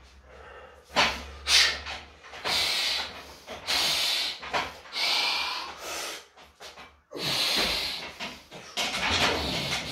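A weightlifter's forceful, hissing and snorting breaths, about one a second: psyching up and bracing under a heavy barbell before a squat.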